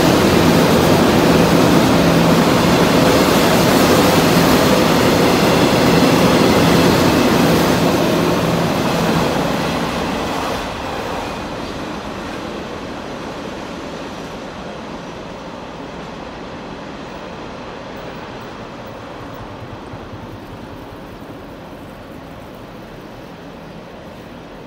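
Container wagons of a freight train rolling past, a loud steady rumble of wheels on rail that fades steadily after about eight seconds as the last wagons pass and draw away.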